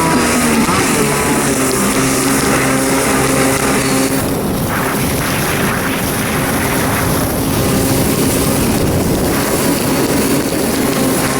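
Kawasaki 650SX stand-up jet ski's two-stroke twin engine running under way, with water rushing and splashing against the hull; the steady engine tone gives way to louder rushing water for a few seconds in the middle.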